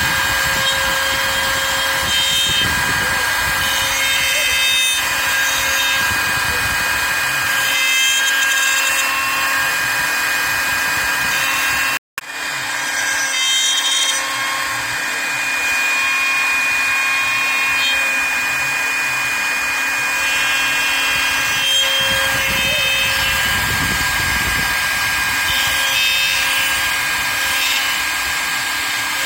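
CNC router spindle whining steadily while its bit cuts into wood, with a shifting cutting noise under the tone. It cuts out for an instant near the middle.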